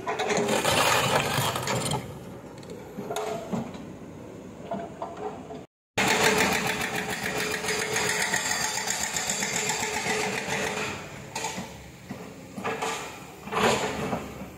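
Kobelco hydraulic excavator working, its diesel engine and hydraulics running with a steady whine under loud stretches of rough scraping and clattering as it digs and moves rock and earth.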